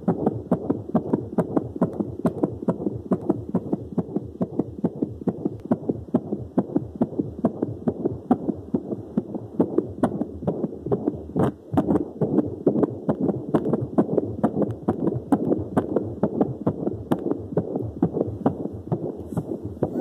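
Unborn baby's heartbeat picked up by a home fetal Doppler and played through a portable speaker: a fast, even whooshing beat of about 145 beats a minute, with a brief dropout about eleven and a half seconds in.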